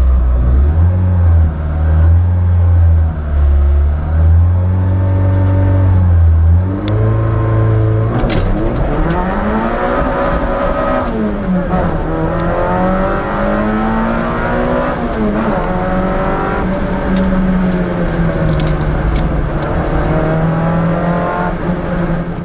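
Peugeot 106 S16 Group N rally car's 1.6-litre four-cylinder engine heard from inside the cabin: revs wavering up and down for the first several seconds, then from about eight seconds in the car accelerates hard through the gears, the pitch climbing and dropping back at each upshift.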